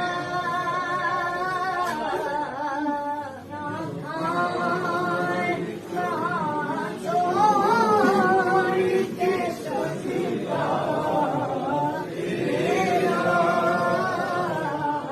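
Unaccompanied Islamic devotional singing: long melodic phrases with ornamented, wavering held notes, separated by short breaths.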